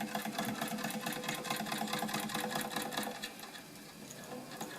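Wilesco D455 model steam engine running briskly, its cylinder exhaust and motion making a rapid, even ticking with a steady hum underneath. It is running with the steam valve opened a touch more, and the ticking grows softer after about three seconds.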